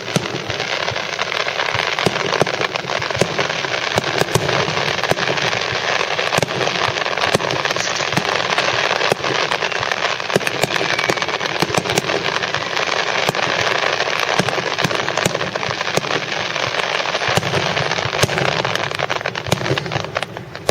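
Fireworks finale: a dense, continuous barrage of crackling and many sharp bangs from shells bursting overhead, thinning out just before the end.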